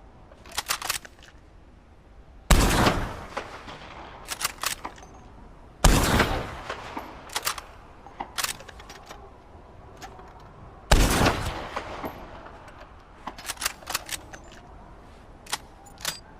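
Carcano bolt-action rifle firing three shots a few seconds apart, each with a ringing tail. Between the shots come quick clusters of sharp clicks, the bolt being worked to chamber the next round.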